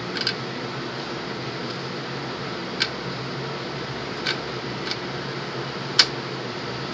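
Short, sharp clicks and taps of fingers fitting a part onto a desktop PC motherboard inside its metal case, about five in all and the loudest near the end, over a steady background hum.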